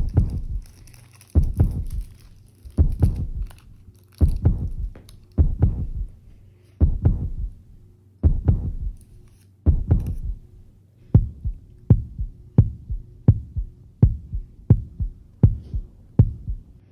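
Deep thumps like a heartbeat over a steady low hum, in double beats about every second and a half, quickening to about one beat every 0.7 seconds a little past halfway.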